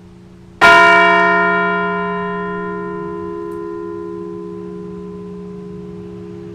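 A large memorial bell struck once, about half a second in, then ringing on and slowly fading. It is tolled for a veteran whose name has just been read.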